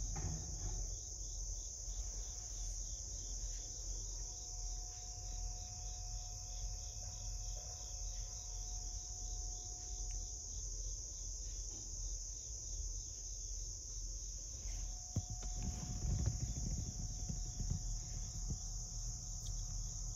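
A steady, high-pitched chorus of insects, with some soft low rustling about three-quarters of the way in.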